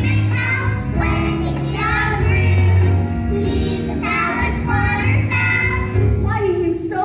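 Children singing a song over instrumental accompaniment with sustained bass notes.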